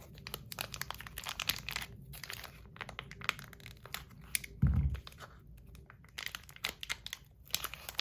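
Packaging being opened by hand: irregular crinkling, tearing and rustling with many small clicks, and one dull thump about four and a half seconds in.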